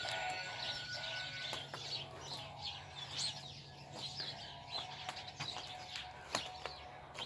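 Small birds chirping and twittering in many quick short calls, with a few sharp clicks.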